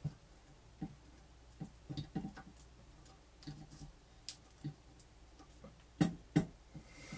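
Scattered small clicks and taps of hands handling wires and heat-shrink tubing on a workbench, with two louder knocks about six seconds in.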